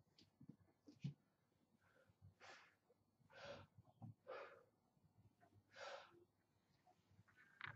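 A man breathing hard under a loaded squat bar between reps: about four faint, separate breaths, each short and spaced a second or so apart, with a faint click or two.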